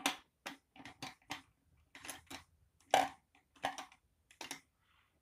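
Small objects being handled: about a dozen irregular clicks and clatters in quick succession, such as makeup products and cases being picked up and set down.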